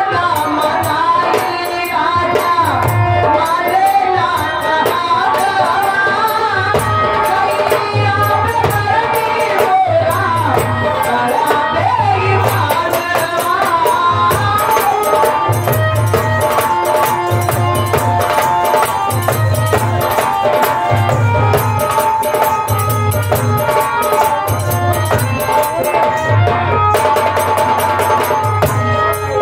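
Live amplified folk song: a singer's voice over a dholak and a large kettle drum, with a deep drum beat about once a second. About halfway through the voice gives way to a steady held-note melody over the same drumming.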